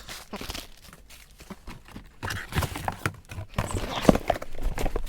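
Unboxing sounds: packaging and papers being handled, with irregular knocks and clicks and some rustling, busier from about two seconds in.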